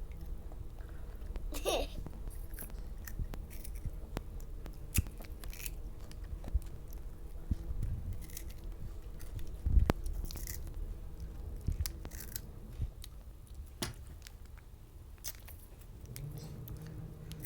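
Crunchy snack being bitten and chewed: irregular crunches and crackles, with a louder knock about ten seconds in.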